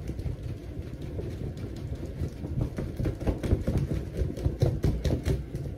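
A bath towel waved and shaken right against the microphone: a rumbling, buffeting rustle of cloth and moving air, with irregular louder flaps that come thicker in the second half and stop suddenly near the end.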